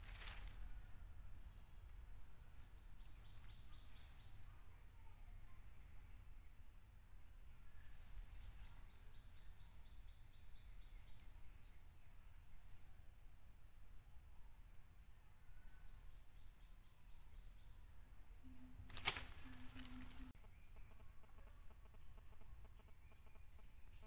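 Faint outdoor ambience: a steady high insect drone with a few short bird chirps over it, and one sharp click late on.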